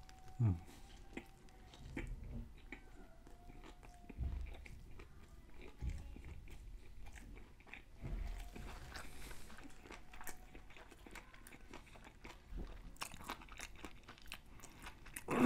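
A person biting into and chewing a hand-breaded crispy fried chicken sandwich, with scattered soft crunches and mouth sounds between quiet stretches.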